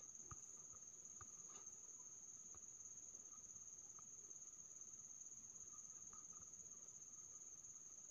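Near silence: room tone with a faint, steady high-pitched whine and a few faint ticks.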